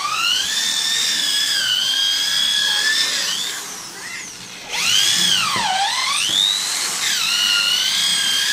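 Electric hand drill running in the wooden sewing-machine table, its high whine rising and falling in pitch. It drops off briefly near the middle, then starts again with a deep dip in pitch before running steady.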